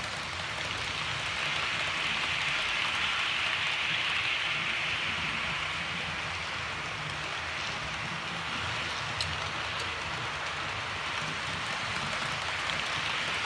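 Several model railway trains running at once: a steady whir of their motors and wheels on the track, swelling as trains pass close by, with a single click about nine seconds in.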